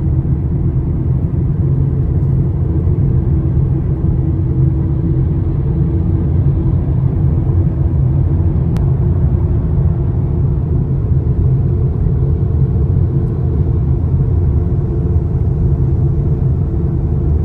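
Steady, loud, low rumble of a vehicle engine in motion, with faint steady hum tones above it and no change in speed.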